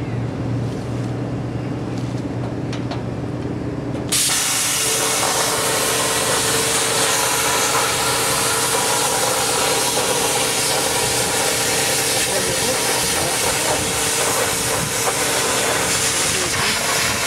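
Plasma cutter cutting steel plate: a steady low machine hum, then about four seconds in the arc starts with a sudden loud, steady hiss of cutting air that carries on with a faint steady tone.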